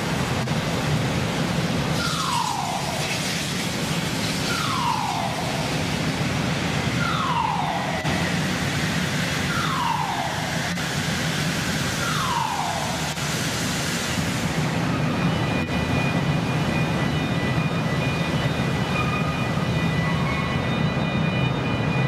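Blast furnace cast house during tapping: a steady low industrial rumble. Over it a falling tone sounds five times, about every two and a half seconds, and from about two-thirds of the way in several high steady tones come in.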